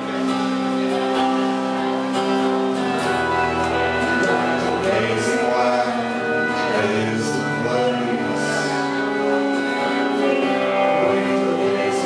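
Live indie band playing a song: acoustic guitar over long held keyboard notes, with a man singing.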